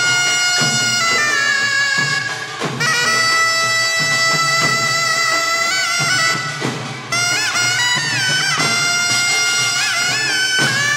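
Taepyeongso, the Korean conical double-reed shawm, playing a loud melody of long held, reedy notes with wavering bends and ornaments, over occasional percussion strokes.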